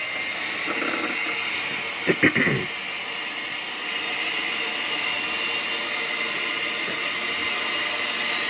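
Electric hand mixer running steadily, its beaters creaming butter in a stainless steel bowl, with a brief clatter about two seconds in.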